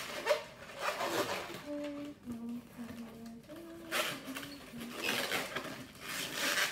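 Latex modelling balloon being twisted by hand, with rubbery rubbing and squeaking. In the middle, a short run of steady hummed notes that step up and down in pitch.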